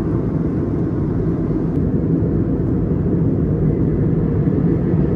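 Steady cabin roar of an Airbus A321neo airliner in flight, engine and airflow noise heard inside the cabin, deep and unchanging.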